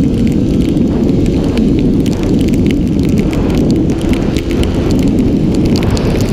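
Heavy wind buffeting on an onboard microphone of a 70cc racing scooter at speed, with the small engine's steady drone faint underneath. Many small crackles of water spray and raindrops from the wet track run through it.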